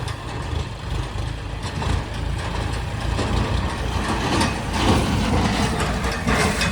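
Heavy diesel engines of a backhoe loader and a farm tractor running steadily, with rougher bursts of noise about four to five seconds in and again near the end.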